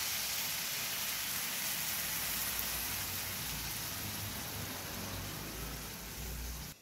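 Tamarind water sizzling in a hot aluminium pan of fried bitter gourd: a steady hiss that eases slightly and cuts off suddenly near the end.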